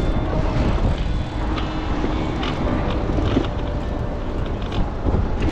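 Wind rumble on the camera microphone and tyre noise as a Brompton folding bike rolls along a city street, with a few brief high tones in the middle.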